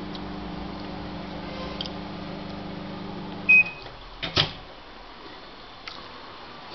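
Microwave oven running with a steady hum that stops about three and a half seconds in as the cooking finishes, marked by one short high beep. Just under a second later come two sharp clicks, the loudest sound here, as the door latch is released.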